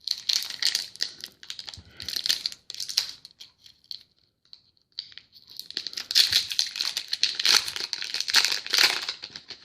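Trading-card pack wrappers being torn open and crinkled by hand: crackly bursts at first, a short pause in the middle, then longer, denser crinkling of the wrappers.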